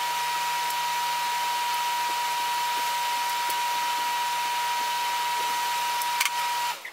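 Steady hiss of rushing air with a steady high whine over it, like a small electric blower motor running, unchanging throughout.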